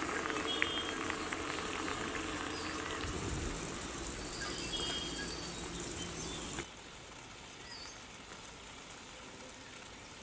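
Outdoor rural background with a few short, high bird chirps over a steady low hum. About six and a half seconds in the level drops suddenly, leaving a quieter background with one faint chirp.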